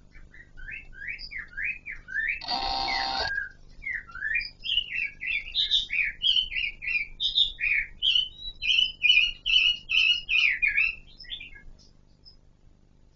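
A Kon Ka Kinh laughingthrush (black-crowned laughingthrush) singing a long run of quick, slurred whistled notes that rise and fall, with one short, harsh, buzzy call about two and a half seconds in. The song stops shortly before the end.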